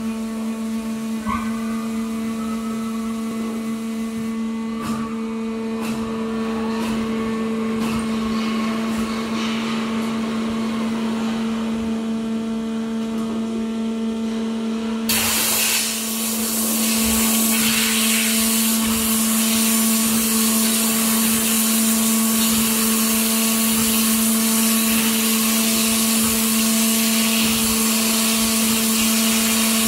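The 2003 Waterjet WF 1630 CNC water jet cutter's 45 kW high-pressure pump running with a steady hum. About halfway through a loud hiss comes on suddenly and holds, as the high-pressure water jet (up to 4130 bar) starts up.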